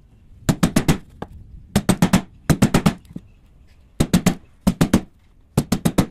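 A chisel being struck in quick bursts of four to six sharp knocks, about six bursts, chopping out and tapering the throat of a wooden hand-plane body so that shavings will not jam.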